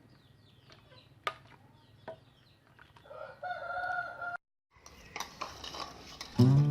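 A rooster crows for about a second and a half, starting about three seconds in, and is cut off abruptly. Before it come faint, high, repeated chirps and a couple of sharp clicks; music begins right at the end.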